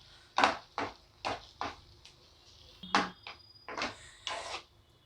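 A cooking utensil scraping and knocking in a pan as thick melted jaggery and ginger are stirred. About seven short, irregularly spaced scrapes.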